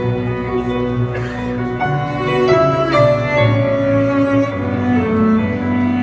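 Slow instrumental music with long, held notes in several voices, played over loudspeakers.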